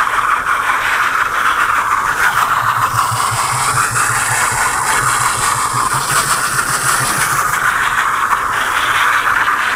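Tractor-driven bale wrapper running, its arm turning and stretching film around a round hay bale, with a steady mechanical whirr over a tractor engine running underneath.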